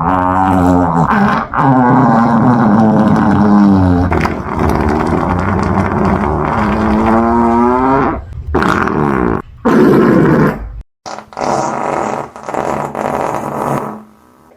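A series of fart sounds: one long, wavering, droning fart lasting about eight seconds, then several short blasts separated by brief gaps.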